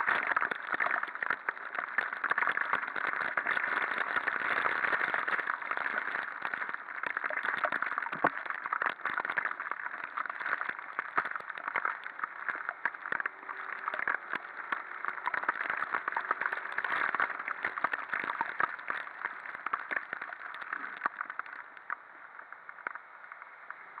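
Heavy rain crackling on the camera's casing and microphone, with a dense, steady patter of drops mixed with road spray, easing a little near the end.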